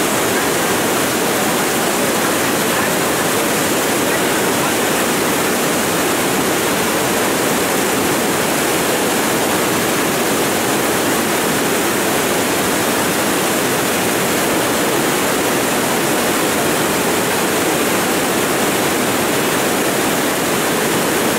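Floodwater rushing in a steady, loud, unbroken roar of water noise.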